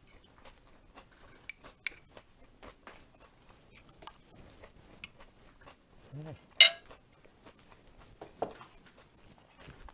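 A metal fork and spoon clicking and scraping against a small glass cup while eating, with quiet mouth sounds between. One sharp click about six and a half seconds in is the loudest.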